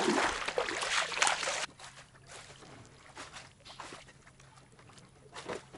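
Water sloshing and splashing around a swamped motorboat in shallow water. A loud rushing noise for the first second and a half stops suddenly, then fainter scattered splashes follow.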